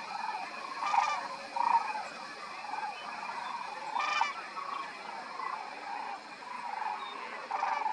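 A flock of sandhill cranes calling, many overlapping calls in a continuous chorus, with a few nearer, louder calls standing out about a second in, around the middle, and near the end.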